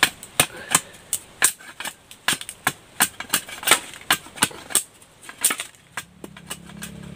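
Machete chopping dry sticks into kindling for a fire: a run of sharp wooden knocks, two or three a second, that stop about five and a half seconds in. A low steady hum comes in near the end.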